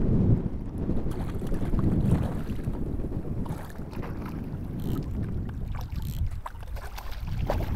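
Wind buffeting the microphone over water sloshing around a wading angler's legs, as a small hooked fish is played in. In the second half, scattered light clicks and splashes come through over the rumble.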